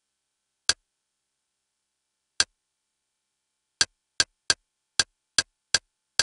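Interface navigation clicks from a media-centre channel menu as the cursor steps down the list: nine short, sharp clicks, two far apart at first, then a quick run of seven at about two to three a second.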